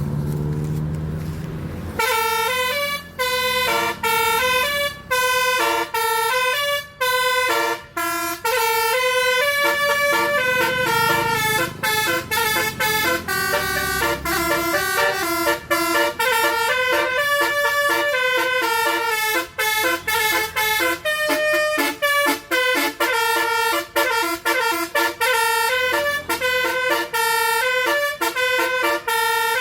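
Basuri 'telolet' multi-tone air horn on a tour bus playing a quick melody, note after note in stepped pitches with short gaps between phrases. It starts about two seconds in, after a low hum.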